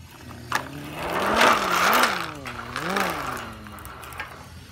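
A buzzing, engine-like 'brrrm' made by a voice, the kind of noise made while pushing a toy truck. It swoops up and down in pitch a few times over about three seconds, rasping at its loudest about a second and a half in.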